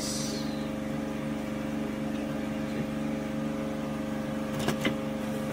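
Steady hum of a generator engine running in the background, with two light knocks of handling near the end.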